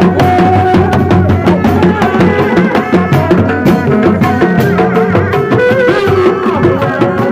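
Dogdog, Sundanese single-headed hand drums, beaten with the palms in a fast, driving interlocking rhythm, with a wavering sustained melody line carried over the drumming.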